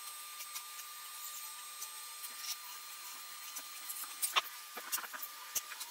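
Faint scattered clicks and light knocks of small metal injection-pump parts being handled and set down on a steel workbench, with a few sharper knocks from about four seconds in.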